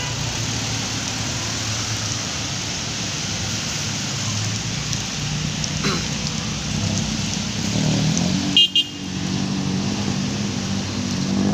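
Vehicles driving through a flooded street: engines running and water noise, with a brief car horn honk about three quarters of the way through.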